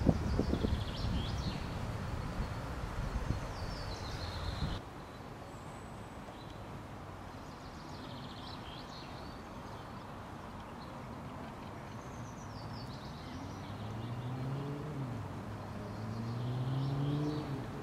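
Songbirds singing short, repeated phrases, with wind buffeting the microphone for the first few seconds. Near the end an engine rises in pitch twice, like a vehicle accelerating.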